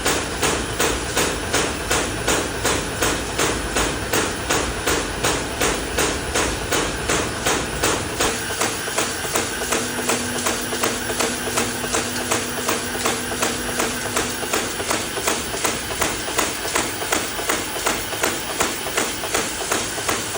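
A machine clacking in a steady rhythm, about three sharp strokes a second, over a faint motor hum.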